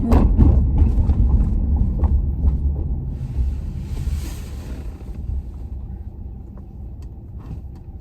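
Steady low road and engine rumble inside a moving truck's cabin, easing off in the second half, with a brief rush of hiss about halfway through.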